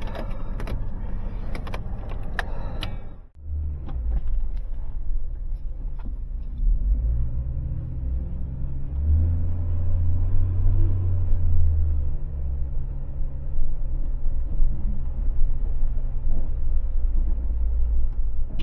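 A motor vehicle's engine running with a low, steady rumble and drone. The sound cuts out briefly about three seconds in, then the rumble carries on.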